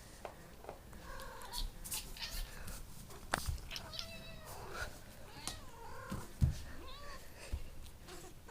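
A domestic cat making a run of short, odd, wavering meows, about half a dozen calls that bend up and down in pitch, with a few clicks in between.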